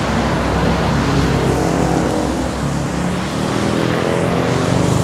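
Road traffic on a busy city street: the hum of vehicle engines with a slowly shifting pitch over a steady hiss of tyres on the road.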